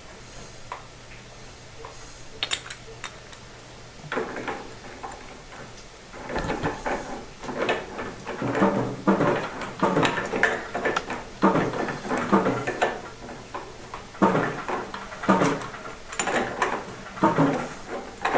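Black iron pipe fittings being handled and screwed together: irregular metallic clanks and scrapes that start about four seconds in and grow busier and louder from about six seconds in.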